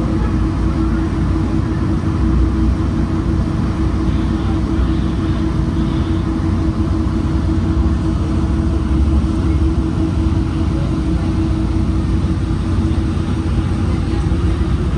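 Metrolink commuter train running, a steady rumble with a constant hum.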